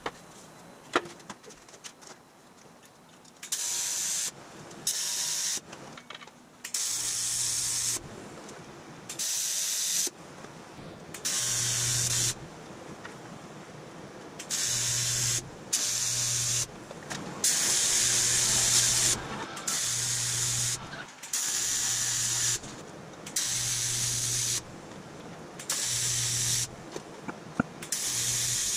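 TIG welding arc on aluminum sheet, a crackling hiss with a low hum under it. It is struck in about a dozen short bursts of one to two seconds each, starting a few seconds in, as the seam of the aluminum body panels is welded in stitches.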